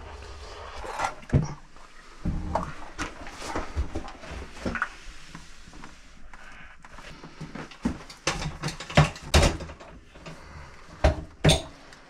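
Knocks, clunks and scrapes of an old tank-type water heater being tipped and worked out of a tight closet, with a few louder thumps in the second half.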